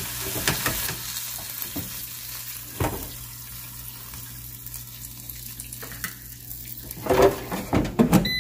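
Rib eye steak sizzling in a hot air fryer basket, the hiss strongest at first and fading, with clicks of metal tongs against the basket as the steak is lifted out. Near the end, a run of louder knocks and clatter as the basket is handled.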